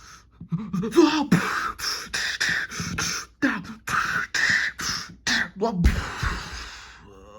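A rapid run of short, sharp mouth and vocal noises, about two a second, some with a voiced grunt in them. About six seconds in they end with one heavy, low thud that fades away.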